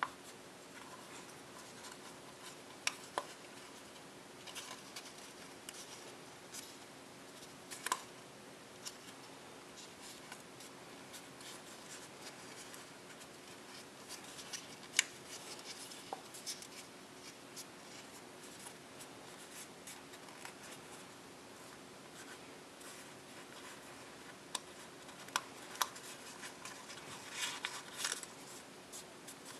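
Copy paper being folded and creased by hand: soft rustling with scattered sharp crackles, and a busier stretch of crinkling near the end, over a faint steady hum.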